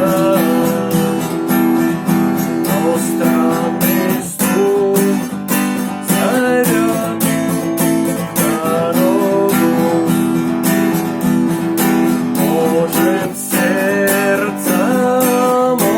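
Acoustic guitar strummed in a steady rhythm, playing chords with a melody line above them.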